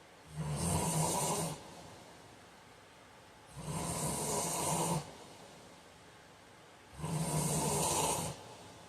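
A man snoring in his sleep: three snores, each about a second and a half long, coming in a steady rhythm roughly every three and a half seconds, with quiet breathing between them.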